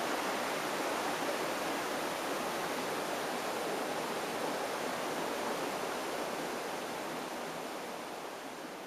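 A river flowing: a steady noise of moving water that grows a little quieter near the end.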